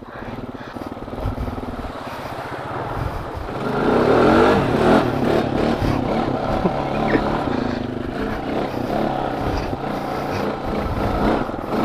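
Honda FourTrax 420 4x4 ATV's 420 cc single-cylinder engine running at low revs, then revving up about four seconds in as the quad pulls away, and staying under throttle with rising and falling revs as it rides over grass.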